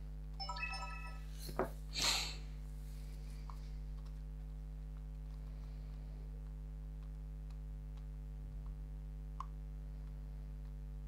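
Canon Legria HF R806 camcorder powering on as its flip-out screen is opened: a short run of electronic beep tones about half a second in, then a click and a brief handling rustle around two seconds. Faint clicks follow as its touchscreen is tapped.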